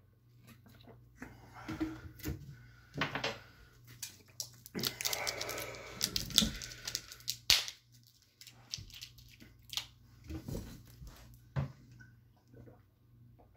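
Clicks, knocks and rustling from a drink bottle and a round lidded container being handled. In the middle there is a louder stretch of rustling and scraping, ending in a sharp click.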